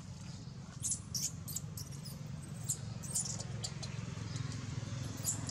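Newborn long-tailed macaque giving short, high-pitched squeaks in little clusters, about a second in, around three seconds in and near the end, over a steady low hum.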